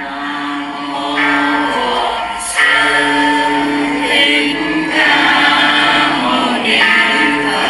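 Background music of a choir singing long held notes in phrases, swelling in over the first second or so.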